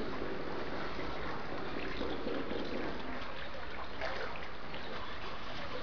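Swimming pool water trickling and lapping steadily, an even rushing hiss with no breaks.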